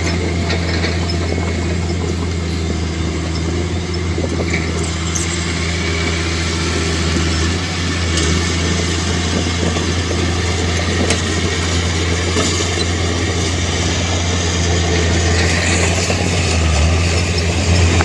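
Heavy diesel engine of earthmoving machinery running steadily, a low continuous drone.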